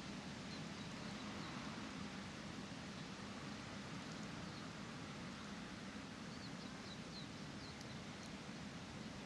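Leaves rustling in a steady hiss over a low, even rumble, with small birds chirping high and short: a few faint chirps in the first second and a quick run of about six chirps around six to seven and a half seconds in.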